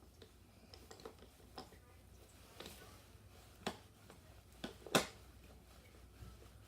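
Scattered small clicks and taps of a screwdriver and the lawn mower's air filter cover as the cover is screwed back on, with a sharper click about five seconds in and a brief rustle before it.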